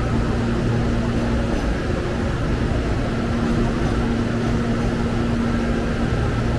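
Railway station ambience: a steady low rumble and hum with one constant tone, unchanging throughout, with no distinct passing or braking events.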